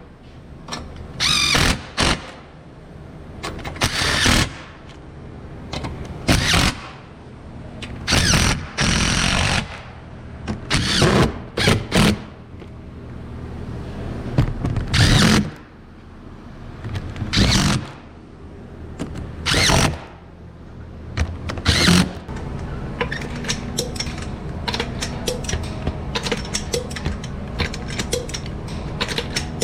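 A power tool run in about a dozen short bursts, roughly every two seconds, typical of an air ratchet or impact wrench driving fasteners. From about two-thirds of the way through, the bursts stop and a steady hum with faint light ticking remains.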